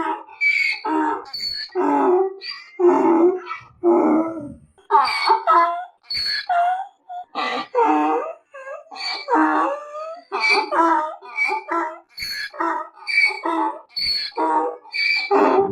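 Donkey braying: a long run of hee-haw calls, alternating higher and lower notes about twice a second, with a couple of brief pauses.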